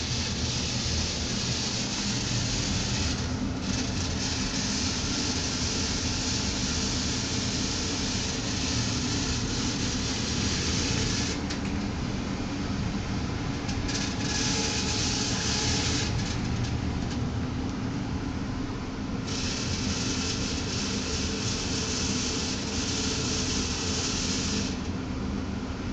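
Newly installed furnace blower running with a steady hum and a high-pitched rattle that drops out for a few seconds several times. The rattle comes from the furnace's owner's manual left inside the blower compartment.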